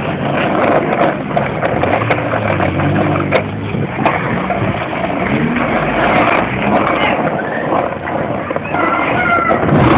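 Skateboard wheels rolling over rough asphalt: a steady, loud grinding rumble broken by scattered clacks and knocks of the board.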